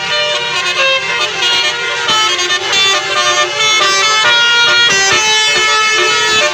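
Indonesian bus 'telolet' basuri musical air horns playing melodies: quick runs of changing notes, with more than one horn sounding at once.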